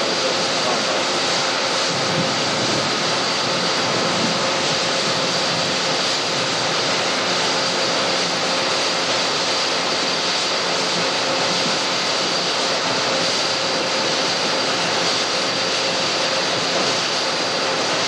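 Steady diesel drone of a John Deere 8820 combine and the tractor pulling the grain cart beside it, running together while the combine unloads soybeans into the cart through its swung-out auger.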